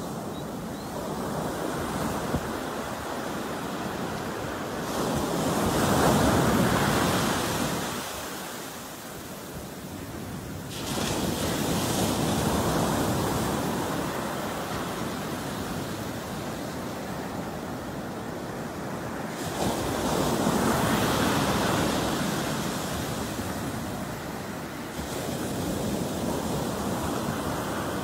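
Ocean surf breaking on a sandy beach: several waves crash in turn, each a rush of foam that swells and fades as it washes up the sand, the loudest about six seconds in.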